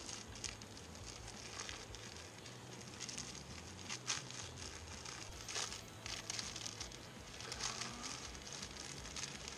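Thin plastic wrapper of an onigiri crinkling as it is pulled open by hand, in irregular crackly rustles with a few sharper crackles.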